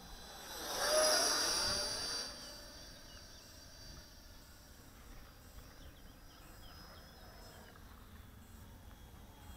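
The 64 mm eight-blade electric ducted fan of a model Tornado jet whining as it flies past, loudest about a second in, then fading to a faint high whine as it moves away.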